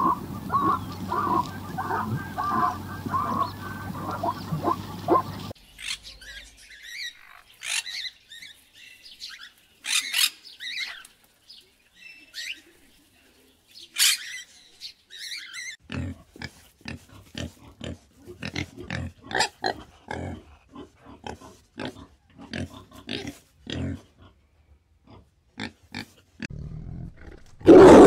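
A string of separate animal sounds. First come low animal sounds; then, after a sudden change about five seconds in, a series of harsh, high squawks from blue-and-yellow macaws. A fast run of short sharp sounds follows, and a loud tiger roar comes right at the end.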